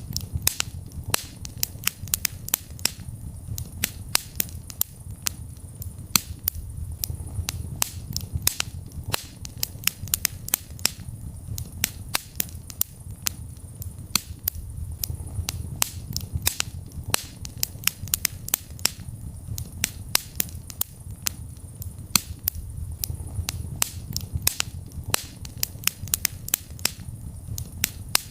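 Wood fire burning in a fireplace: dense, irregular crackles and pops, several a second, over a low steady rumble of the flames that swells and eases every few seconds.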